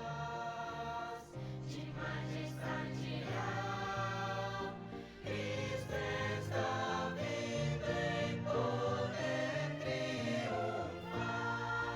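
A choir singing a hymn with musical accompaniment, in long held chords that change every second or so.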